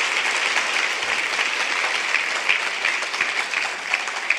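Audience applauding: dense, steady clapping that slowly fades.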